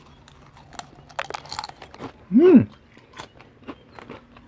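Crispy yam chips crunching as they are bitten and chewed, in quick irregular crackles. About halfway through, the eater gives a short hum that rises and then falls, the loudest sound.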